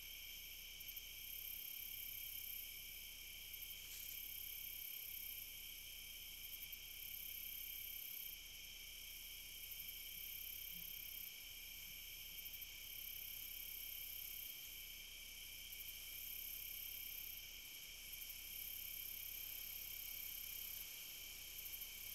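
Crickets trilling steadily in a continuous high-pitched chorus, with a faint low hum underneath.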